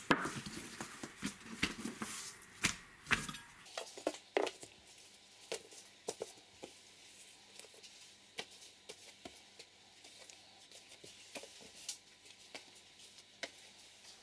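Hands handling thin rolled dough on an oilcloth table: soft slaps, rustles and scattered clicks as cut squares are peeled apart and laid down, busiest in the first few seconds.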